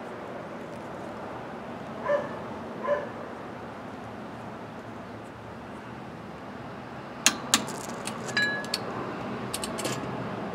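Click-type torque wrench on a wheel-bearing nut, giving two sharp clicks about seven seconds in as the nut reaches its set torque of 55 foot-pounds. A ringing metal clink and a few lighter metal clicks follow, and a dog barks twice about two seconds in.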